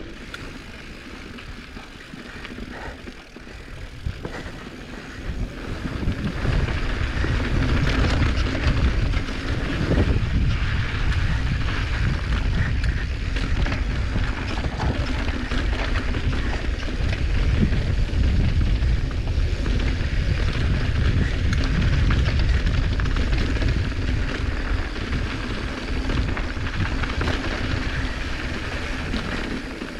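Wind rushing over the microphone during a downhill ride, with rough rolling noise underneath. It grows loud about six seconds in and stays loud.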